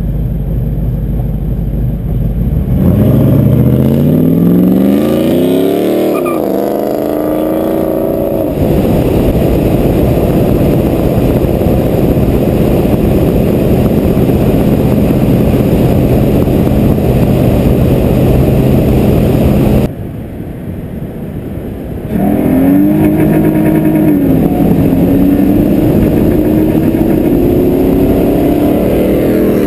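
Car engine accelerating hard from a stop, revs climbing steeply through one gear and then another after a shift about six seconds in, then running steady at speed. About twenty seconds in it goes quieter for two seconds, then pulls hard again with revs rising through another gear change.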